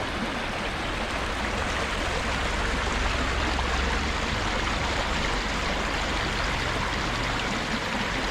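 Steady rushing of flowing stream water, with a low rumble underneath.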